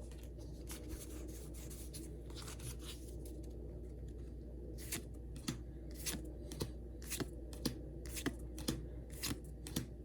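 A foil trading-card booster pack being torn open, then its cards flicked through one by one, making sharp snaps about twice a second in the second half, over a low steady hum.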